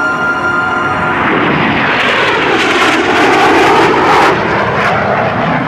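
F-117 Nighthawk stealth jet's twin turbofan engines in a low flyby. The engine noise swells to its loudest about three to four seconds in and then eases as the jet goes past, with a sweeping, phasing swish. Background music fades out about a second in.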